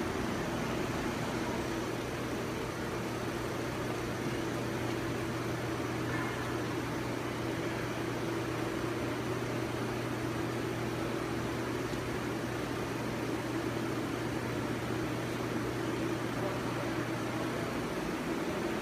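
Steady mechanical hum with an even hiss, like a fan or air-handling unit running. The lowest part of the hum cuts off shortly before the end.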